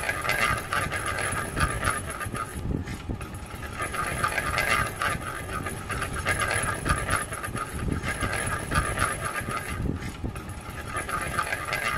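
Train running on the rails, a steady, dense run of rapid clicks and rumble.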